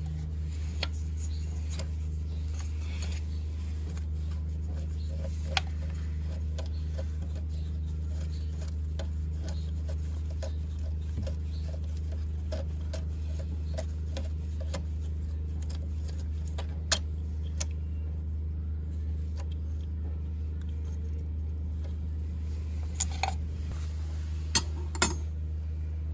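Small metal parts and hand tools clicking and clinking now and then over a steady low hum, with a few sharper clicks near the end.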